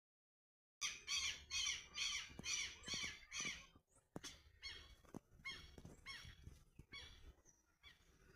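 Bird calls: a quick series of short repeated calls, about two a second, loud for the first three seconds, then fainter calls of the same kind keep going.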